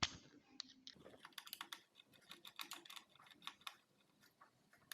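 Faint, quick, irregular clicking of a small screwdriver working the spring-loaded screws that hold a laptop's cooling fan.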